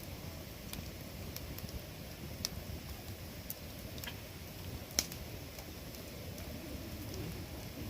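Wood campfire crackling, with sharp pops about once a second, the loudest about five seconds in, over a low steady rumble.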